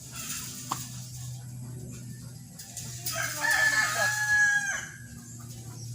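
A rooster crowing once, a call of about two seconds that starts about three seconds in, held on one pitch and falling away at the end, over a steady low hum.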